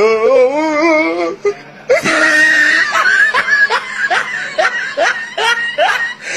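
Laughter: a warbling, wavering voice for about a second and a half, then a long run of short rising laughs, about three a second.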